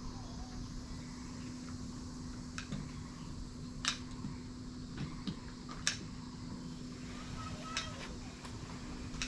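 Steady outdoor background noise with a constant low hum, and a scattering of sharp, irregular ticks, about seven of them.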